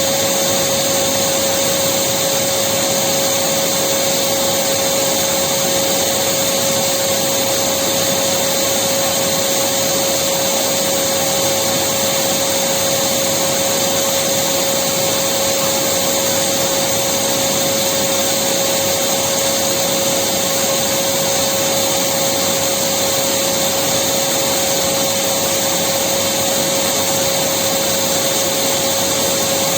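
Electric vacuum cleaner running steadily without a break: an even rush of air with one constant tone held through it.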